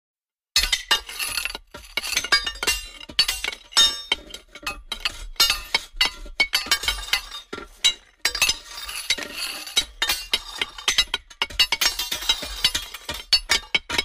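Metal banging against rocks in a rapid, irregular run of sharp clanks and clinks, each with a short high ringing tone. It starts about half a second in.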